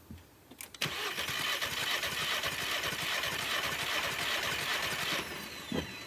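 Starter cranking a Volkswagen Jetta GLI's turbocharged four-cylinder engine for about four seconds without it firing, then stopping. The coils are removed for a compression test, and this cylinder reads a little over 150 psi.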